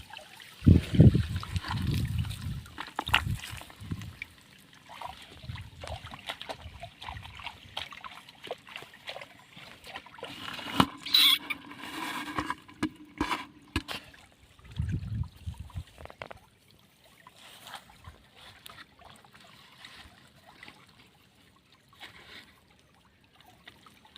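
Shallow water trickling, with irregular splashes and sloshes of water being stirred or waded through; the splashing is heaviest in the first few seconds and dies down towards the end.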